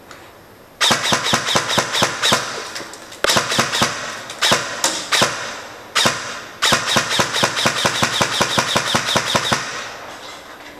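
LVOA M4 SBR airsoft electric rifle (AEG) firing strings of rapid shots, about seven a second, with a few single shots between. It fires in three main strings starting about a second in, and stops near the end.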